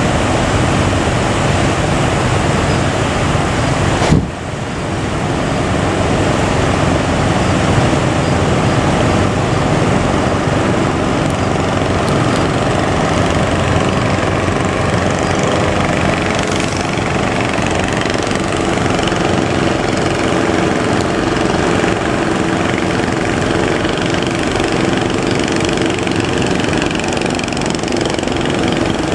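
Small boat engine running steadily over a constant roar of surf and wind, with a single sharp thump about four seconds in.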